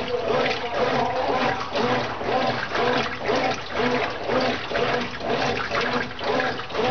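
Brastemp Ative 11 kg top-loading washing machine agitating: water and laundry slosh as the agitator swings back and forth about twice a second, the motor's hum rising and falling with each stroke.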